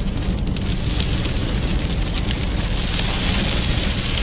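Sandstorm wind heard from inside a car: a dense, steady hiss of blowing dust and sand against the windshield over a loud low rumble of wind buffeting.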